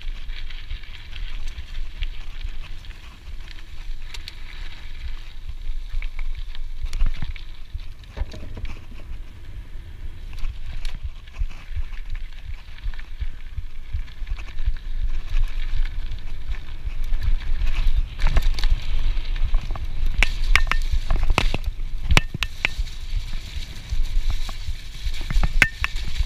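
Scott Genius mountain bike rolling along a dirt singletrack, heard from a body-mounted GoPro: a steady rumble of tyres on the trail with constant small rattles and clicks from the bike. The rattling grows busier and louder about two-thirds of the way in, as the trail gets rougher.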